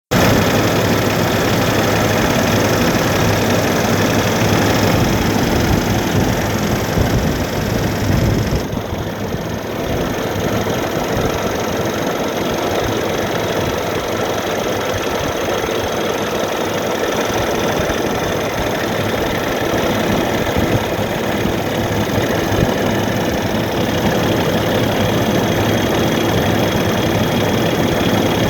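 Diesel engine of a Kenworth T800 logging truck idling steadily. The sound turns briefly duller about nine seconds in.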